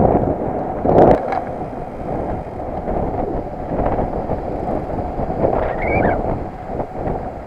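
Wind buffeting the microphone of a camera on a moving bicycle: a steady, loud low rumble, with a sharp knock about a second in and a brief higher chirp near the end.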